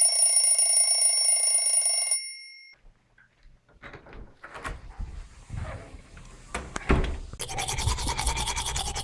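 A ringing bell with a buzz under it sounds for about two seconds and cuts off suddenly. After a short hush come scattered clicks and knocks, a louder thunk near the middle, then a fast, even scratching rhythm to the end.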